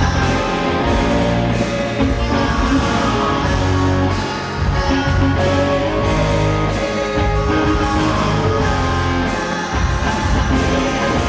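Live rock band playing an instrumental stretch of a pop-rock song, with electric guitar to the fore over bass and drums, and no singing.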